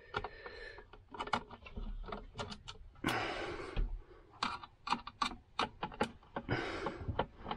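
Screwdriver turning the screws on a plastic inline duct fan's casing: a string of small sharp clicks and ticks, with two brief rustles about three seconds in and near the end.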